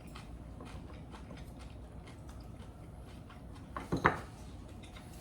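Quiet eating at close range: faint chewing and small mouth and utensil ticks, with one short, louder sound about four seconds in.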